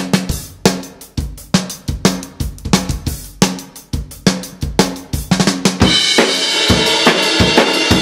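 Drum kit played in a steady groove around a homemade snare drum whose shell is 18 pine staves cut from a single 2x4, strung with synthetic-gut snares that lack the snap of wire snares; bass drum and cymbals play along. About six seconds in, the cymbals wash in loudly over a run of rapid strokes.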